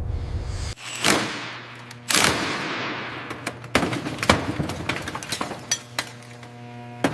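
Metallic clanking: two loud ringing metal impacts about a second apart, followed by a string of lighter sharp clinks and taps over a faint steady hum.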